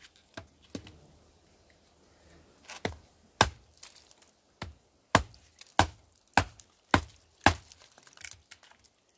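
Hollow-ground knife blade chopping into a stick of seasoned wood, a dozen or so sharp chops. Two come in the first second, then after a pause they come steadily about two a second.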